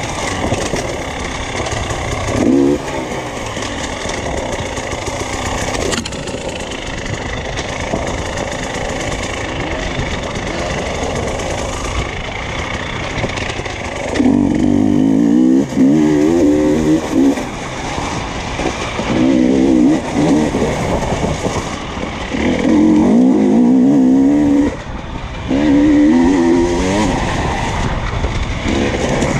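Enduro dirt bike engine running under load and revving up and down as it is ridden hard. Several louder bursts of throttle come in the second half.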